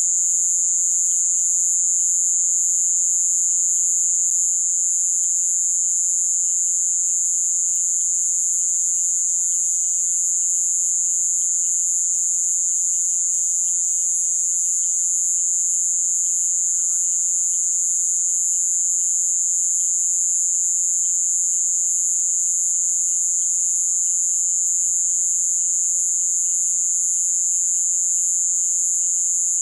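Night insect chorus in the Amazon rainforest: a loud, steady, high-pitched drone that never breaks, with fainter rapid chirping and trilling calls underneath.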